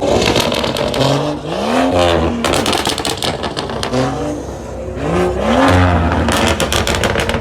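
BMW M car's aftermarket exhaust revved twice, the engine pitch rising each time, with rapid popping and crackling after each rev as the throttle closes.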